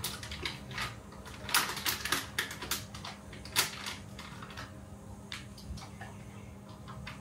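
A plastic dog-treat packet being handled and crinkled, giving irregular sharp crackling clicks that are busiest in the first half and thin out later.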